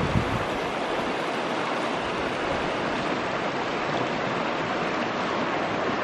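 Steady rush of water, with a brief buffet of wind on the microphone at the very start.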